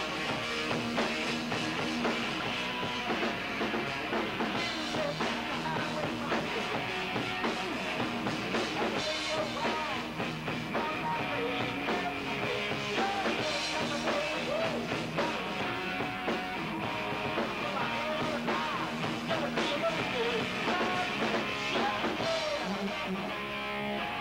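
Rock band playing live: electric guitars and drum kit going continuously, with a singer's voice over them.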